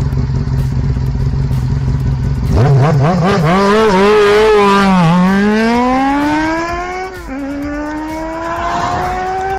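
A motor vehicle's engine running steadily, then revving and accelerating: its pitch climbs, drops sharply twice as it shifts gear, and climbs again each time.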